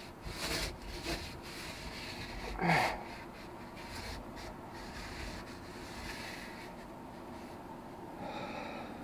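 A rag rubbing over the inside of a fiberglass boat hull as it is wiped down with acetone, with a man breathing and a short grunt falling in pitch about two and a half seconds in.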